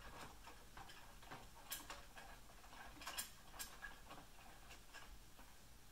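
Faint, irregular light clicks as the lead screw of a 3018 Pro CNC router is turned by hand, driving the build platform along its steel guide rods.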